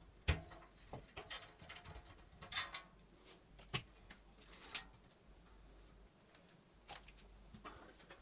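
Scattered light clicks, taps and scraping rustles from PC case parts and screws being handled and worked loose, with two louder scrapes about two and a half and four and a half seconds in.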